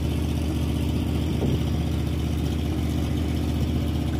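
An engine idling steadily with an even, low-pitched running sound.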